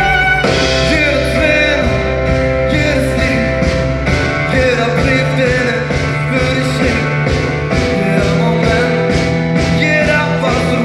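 Live pop band playing loud music with a steady drum beat and a melody line, in an instrumental passage between sung verses.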